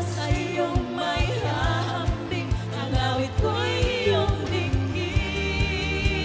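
Worship song playing: singing voices with vibrato over a steady drum beat and bass.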